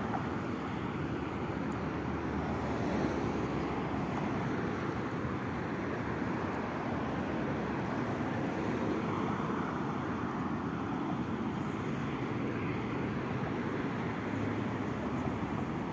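Steady road traffic: cars driving over the bridge and along the road below, an even wash of tyre and engine noise with no single vehicle standing out.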